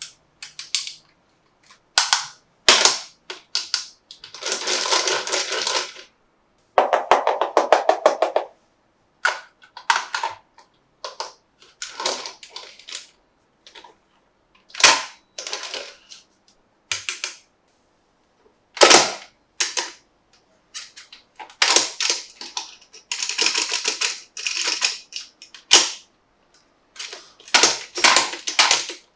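Hard plastic toy parts being handled: a string of sharp clicks and snaps, with three longer rattling stretches.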